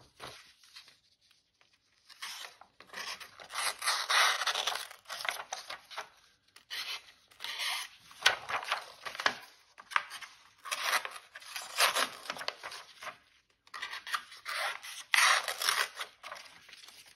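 An Otter anchor knife's stainless steel blade is dragged through a sheet of paper in several separate strokes, each a second or two of scratchy rasping and tearing. The blade is dull from the factory, so it tears and rasps through the paper instead of slicing it cleanly.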